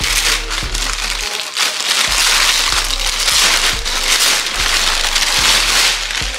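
Thin clear plastic garment bag crinkling loudly as a folded piece of clothing is pulled out and the bag is shaken loose. Background music with a steady low beat underneath.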